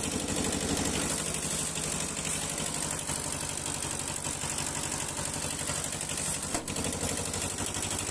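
Small Kubota tractor diesel engine running steadily at idle, with an even, rapid beat, now that its fuel system has been bled of air.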